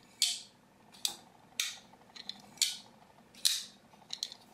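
Zero Tolerance 0560 titanium frame-lock folding knife flipped open and closed over and over: a sharp metallic snap each time the blade swings out and locks or clicks shut, about five loud snaps with a few lighter clicks between.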